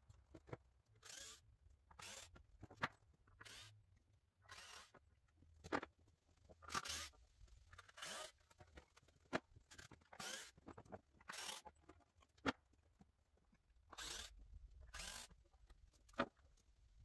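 Faint, irregular short scraping or rustling noises, about one a second, with a few sharp clicks among them.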